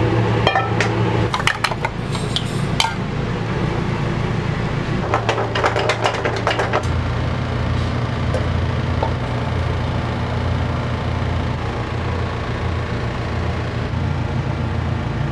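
Metal pans and utensils clanking in a busy restaurant kitchen, in clusters during the first few seconds and again midway, over a steady low hum.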